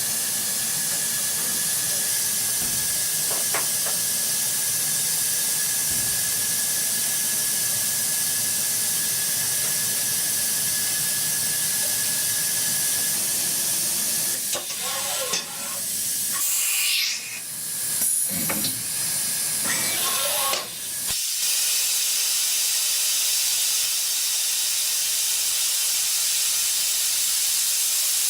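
CNC metal lathe running with its coolant spraying: a steady hiss, with a thin steady whine that stops about halfway through and a few seconds of changing, gliding tones a little after that.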